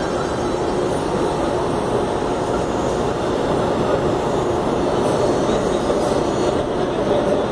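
CPTM electric commuter train running at a station platform: a steady rumble with a faint hum held at a few pitches.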